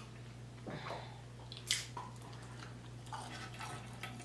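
Close-up chewing of fast food, with a few short, sharp mouth clicks, the loudest about one and a half seconds in, over a faint steady hum.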